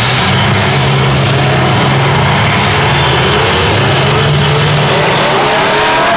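Demolition derby car engines running hard and revving: a loud, continuous engine drone whose pitch steps up and down a few times.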